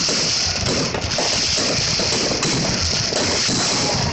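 Many fireworks going off at once, their pops and crackle merging into a continuous loud hissing roar with no clear pause.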